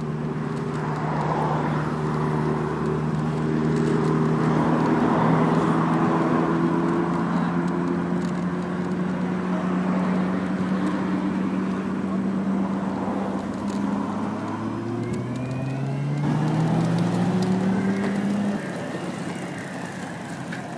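Electric motors of scooters and electric skateboards whining while riding, over wind and tyre noise. The whine is a steady tone that slowly rises in pitch, a second whine climbs in over the last few seconds, and both stop shortly before the end.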